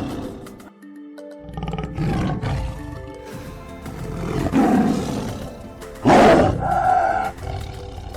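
Tiger roaring three times, the last roar the loudest, over background music.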